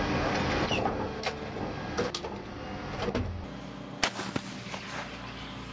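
Metal clanks inside an M109A6 Paladin's turret over a steady engine hum as a 155 mm high-explosive round is loaded, then the self-propelled howitzer fires once about four seconds in: a single sharp report with a short ringing tail.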